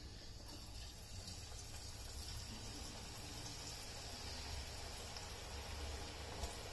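Strands of urad dal jantikalu dough sizzling in hot oil in a kadai as they are pressed in. A faint, steady frying hiss starts about half a second in and grows slightly.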